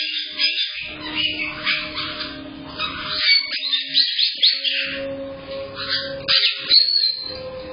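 Caiques chirping and whistling: a busy string of short, quick calls, many sliding upward, thin-sounding through a security camera's microphone, with a faint low hum coming and going underneath.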